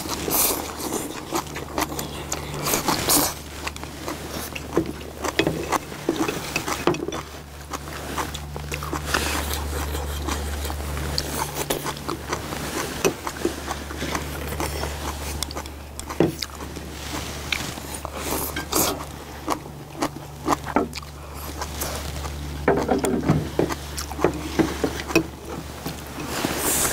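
Mukbang eating sounds: noodles being slurped and food chewed, with chopsticks and spoons clicking and scraping against ceramic bowls, over a steady low rumble.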